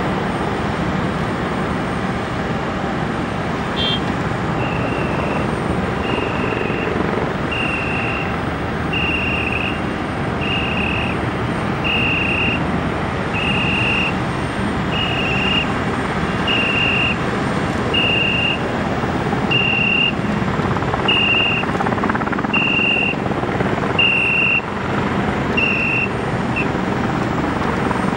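Steady aircraft turbine engine noise. Over it, a high electronic beep repeats about every second and a half, some fifteen times, starting a few seconds in.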